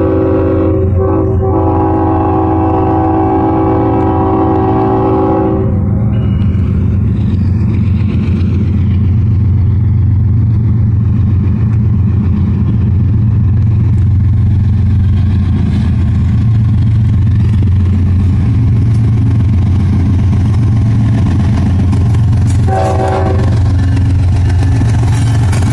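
Diesel freight locomotive's multi-chime air horn sounding a long chord that cuts off about six seconds in, over the heavy low rumble of the locomotives' diesel engines running past. A short horn blast sounds again near the end.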